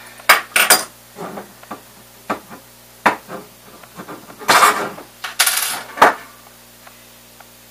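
Clinks and knocks of hand tools and small printer parts handled on a desk: several sharp clicks, with two short scraping sounds about halfway through.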